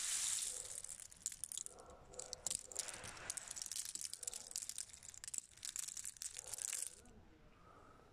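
In-shell pistachios clattering and rattling as a hand stirs through them in a woven plastic sack and scoops up a handful, with the sack crinkling. The rattling stops about seven seconds in.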